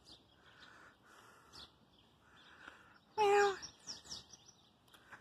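Birds chirping faintly in the trees, with one louder, half-second call about three seconds in.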